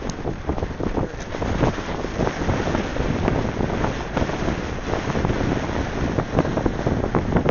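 Gusting wind buffeting the microphone, over the sound of a fishing boat under way through choppy water, its bow throwing spray.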